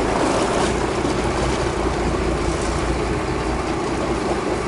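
Fishing boat's engine running steadily: a constant low drone with a hum near the middle, under a haze of wind and water noise.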